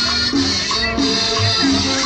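Salsa-style Latin dance music with maracas, played loud over a sound system.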